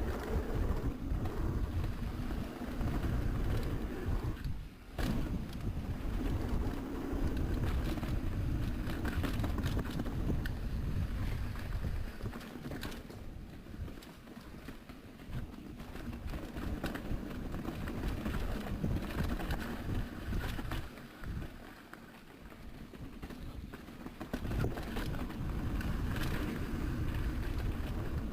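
Mountain bike riding down a trail: wind buffeting the rider's microphone, with rattling and clatter from the bike over rough ground, rising and falling as the ride goes on.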